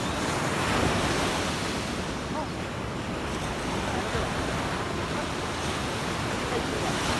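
Sea waves washing onto the beach: a steady rush of surf that swells and eases.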